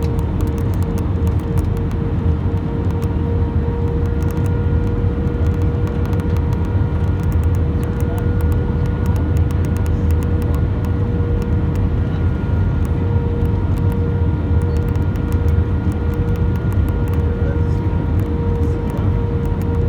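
Steady cabin noise inside an Airbus A320 airliner in flight: a deep, even rumble of engines and airflow with a steady hum over it. A higher tone joins the hum about four seconds in.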